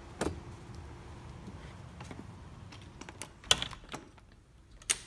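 A handful of sharp clicks and knocks with handling rustle, as a door and window blinds are worked. There is one knock about a quarter second in, a louder cluster about three and a half seconds in, and another near the end.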